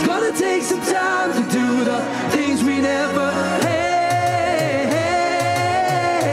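Live pop song over a concert sound system: a sung vocal line with bending, drawn-out notes, one held for the last few seconds, over a steady beat with a repeating bass figure.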